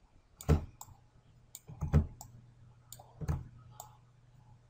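Computer mouse clicking: three louder clicks about a second and a half apart, with lighter ticks between them. A faint steady low hum comes in about two seconds in.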